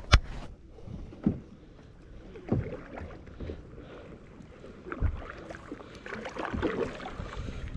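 Kayak paddle strokes: a double-bladed paddle dipping and splashing into river water every second or two. There is a sharp knock right at the start.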